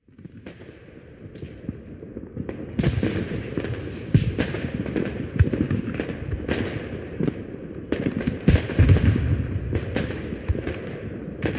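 Aerial fireworks bursting in a rapid, irregular series of sharp bangs with low rumbling echoes. The bangs are faint at first and come louder and thicker from about three seconds in.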